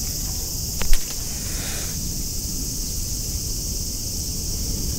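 Steady high-pitched drone of summer cicadas, with a short sharp knock about a second in.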